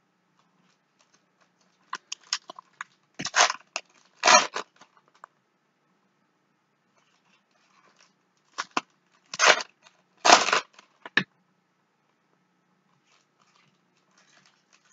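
Foil wrappers of trading-card packs crinkling and tearing in short bursts, in two clusters a few seconds apart.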